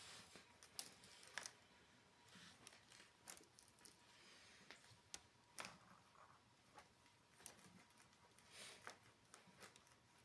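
Near silence: quiet room tone with faint, scattered soft clicks and rustles.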